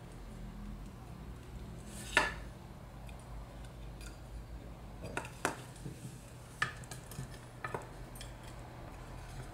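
Aluminium craft wire being twisted and wound by hand around a wooden spoon, giving a handful of short sharp clicks and scrapes, the loudest about two seconds in.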